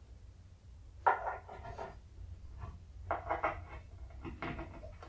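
Wooden ball-topped pins being pushed into holes in a wooden base board: several wooden knocks and scrapes, the loudest about a second in.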